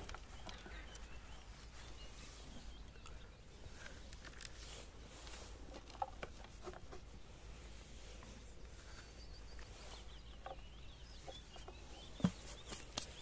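Faint outdoor background with distant bird chirps and a few small knocks, the sharpest about twelve seconds in.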